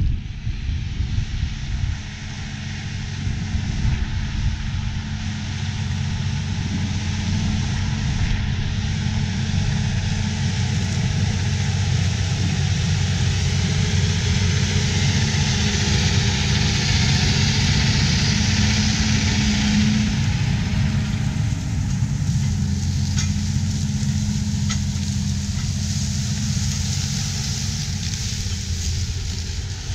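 Versatile 550 DeltaTrack's 15-litre Cummins diesel running steadily under load as the tracked tractor pulls a 14-bottom moldboard plow past. It grows louder as it approaches, is loudest around the middle, and eases off a little as it moves away.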